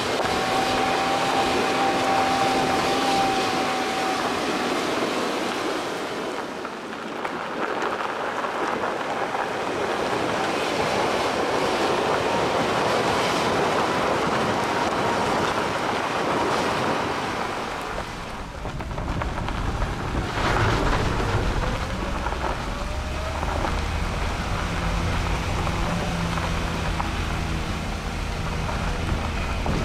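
Car driving on a gravel forest road: steady noise of tyres on loose gravel. About two-thirds of the way through, a low engine hum joins in and holds steady.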